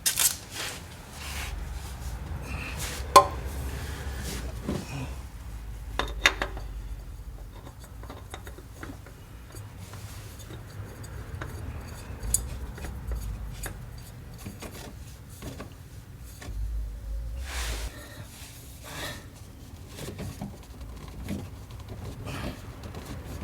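A new spin-on oil filter being threaded back on by hand and handled under the car: scattered metallic clinks and rubbing, with a sharp click about three seconds in and another about six seconds in.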